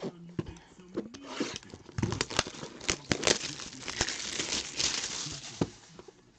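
Plastic wrapping crinkling and tearing, with sharp little taps of cardboard trading card boxes being handled.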